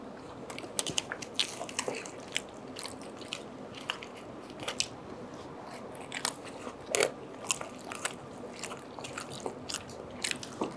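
Close-miked eating sounds of people chewing and biting loaded fries and baked pasta: many short wet clicks and crunches at irregular intervals, the loudest about seven seconds in.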